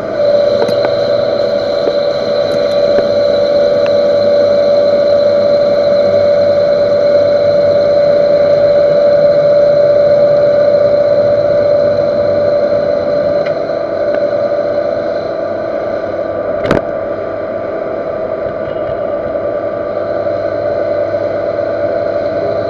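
Metal lathe turning a steel workpiece with a carbide insert, the cut giving a steady ringing tone over the machine's running noise. The tone comes in right at the start and eases after about 13 s. A single sharp click sounds near 17 s.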